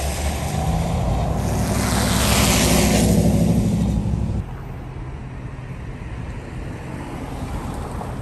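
A vehicle on the road: a low engine hum under a rushing hiss that swells to its loudest two to three seconds in, then drops abruptly about four seconds in to a quieter, steady engine hum.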